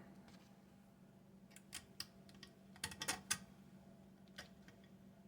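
Small metallic clicks and taps of a screwdriver working a long screw down into the fare box's metal parts: a few clicks about a second and a half in, a quick run of clicks around three seconds, and one more near the end.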